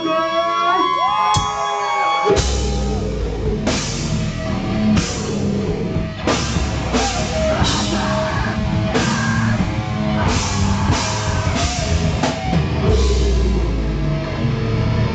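Live heavy rock band playing. Held guitar notes ring with bending pitch, then about two seconds in the drums and distorted guitars come in together, with repeated cymbal and drum hits over a heavy low end.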